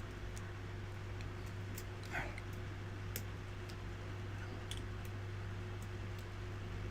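Faint, irregular clicks of a lock pick working the pins of a pin-tumbler padlock held in a false set, over a steady low electrical hum.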